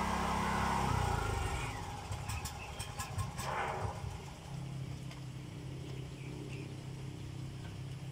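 An engine running, loud at first and fading away about a second and a half in, leaving a fainter steady low hum, with a few light clicks near the middle.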